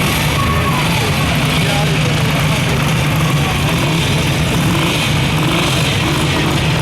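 Vintage Jawa 500 OHC single-cylinder four-stroke motorcycle engines running steadily, with people talking faintly.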